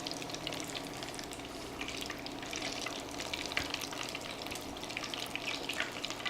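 Crab cakes sizzling in hot frying oil: a steady crackle with many small pops.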